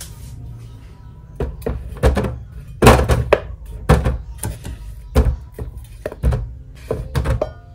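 Chunks of cut melon dropping into a plastic produce container's perforated insert, with a knife knocking and scraping on a wooden cutting board: a string of about a dozen irregular thunks.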